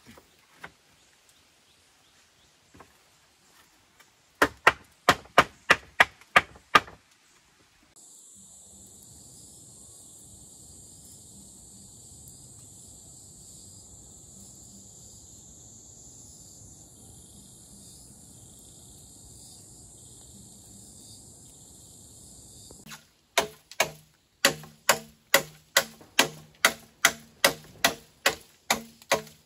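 A large knife blade chopping into bamboo: a quick run of about eight sharp strikes, then a steady high insect drone for some fifteen seconds, then the chopping again at a steady two strikes a second.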